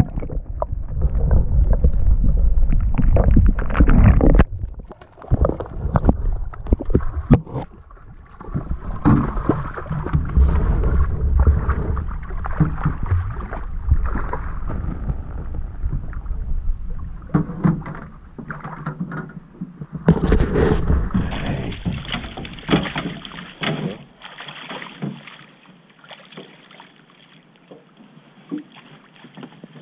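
Water splashing and sloshing as a hooked fish is brought in and netted beside an aluminium boat, mixed with knocks and rumbling handling noise on the microphone. The commotion dies down about three-quarters of the way through, as the fish lies in the net.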